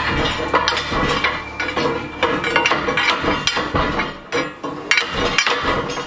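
Steel pry bar striking and scraping against a cast iron radiator, a run of irregular metallic clanks as it levers the sections apart.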